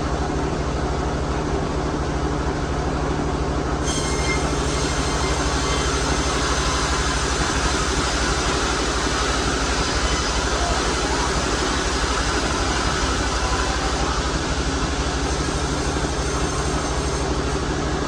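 Sawmill saw running steadily with a low motor hum. From about four seconds in until shortly before the end, the blade cuts through albasia wood, adding a bright, hissing whine.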